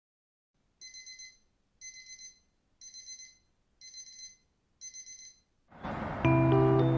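Electronic alarm beeping: five short bursts of rapid high pips, about one burst a second. Soft background music with bell-like mallet notes starts near the end.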